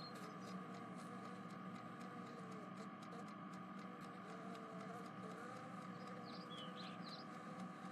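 Faint steady background hiss and hum, with a few faint high chirps about six to seven seconds in.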